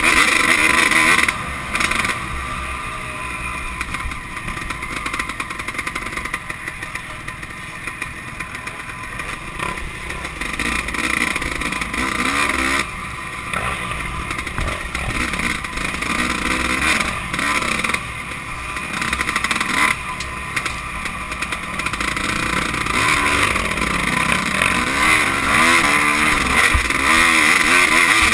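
Off-road dirt bike engine heard from on board the bike, revving up and down with the throttle as it is ridden, with the pitch rising and falling and the loudness swelling and easing throughout.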